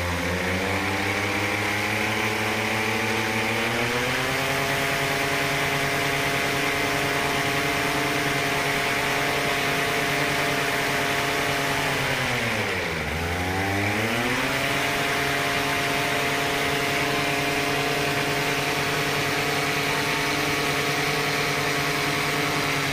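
Polini Thor 260 single-cylinder two-stroke paramotor engine turning its propeller on the ground. It revs up over the first few seconds and holds steady high revs for a maximum-RPM check after a carburettor adjustment. About 13 seconds in the revs drop sharply for a moment, then climb back and hold high again.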